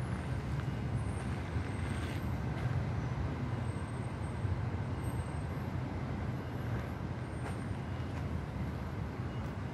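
Steady low rumble of city traffic, with no voices over it.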